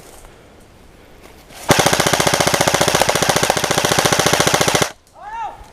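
An airsoft electric gun fires one long full-auto burst of about three seconds, with a rapid, even rate of fire, starting about two seconds in and stopping abruptly.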